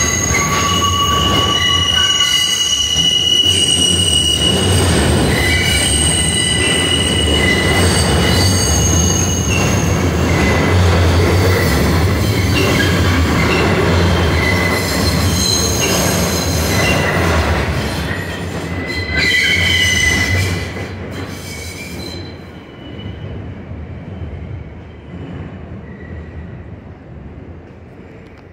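New York City subway train running on the elevated steel structure of the IRT White Plains Road Line, its wheels squealing at several high pitches over a heavy rumble. The sound swells once more about twenty seconds in, then fades steadily as the train moves off.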